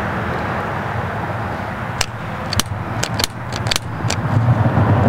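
Steady whirring blow of an electric heat gun shrinking heat-shrink tubing over a crimped wire connector. Several small sharp clicks come in the middle, from the connector and wire being handled.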